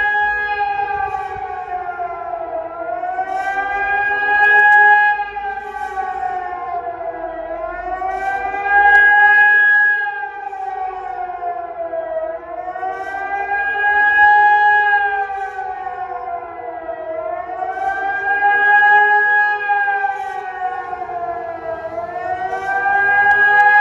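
Civil-defence warning siren sounding the German public-warning signal during a siren test: a wailing tone that rises and falls about every five seconds, loudest at each peak.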